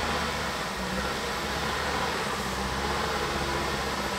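Mitsubishi L200 pickup's engine running steadily as the truck crawls slowly through deep mud.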